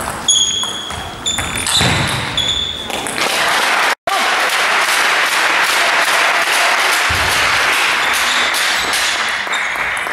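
Table tennis ball clicking back and forth off bats and table in a quick rally for about three seconds. It cuts off abruptly about four seconds in and gives way to a steady, even noisy wash for the rest, with a few faint ball hits near the end.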